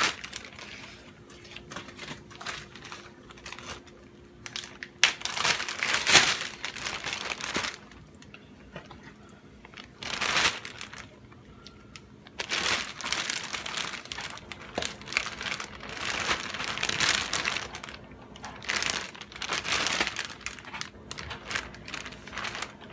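Clear plastic Ziploc storage bag crinkling and rustling in repeated bursts as it is handled and raw pork steaks are packed into it.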